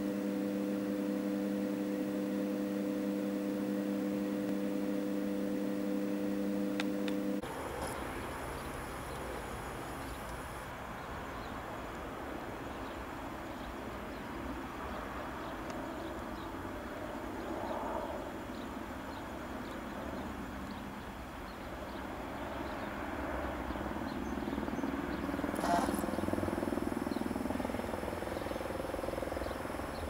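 A steady electrical hum with a few fixed tones, cutting off suddenly about seven seconds in. Then the faint, steady wash of a distant twin-turbine AS 355 Ecureuil helicopter's rotor and engines, swelling a little near the end.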